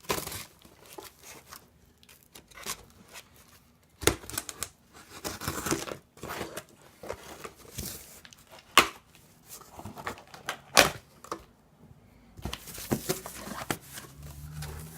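A cardboard shipping box being cut and torn open: tearing and scraping of tape and cardboard with rustling packaging, broken by several sharp knocks.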